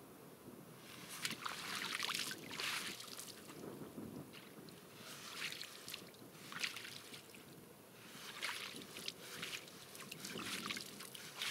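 Shallow river water splashing and sloshing in irregular bursts as a hoop fishing net is swished and dipped to let small caught fish go.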